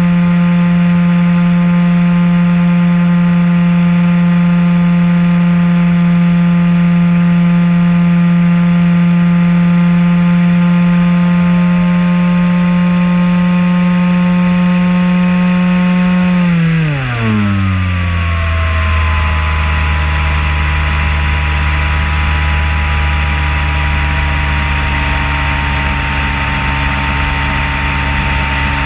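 RC flying wing's motor and propeller running at a steady high pitch as heard from the onboard camera, with wind rush over it. About two-thirds of the way through the pitch drops quickly as the throttle is cut back, and it holds steady at the lower pitch.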